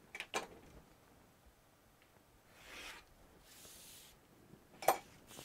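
X-Acto craft knife drawn along a ruler, cutting through paper: two faint scratchy strokes in the middle, then a sharp tap near the end.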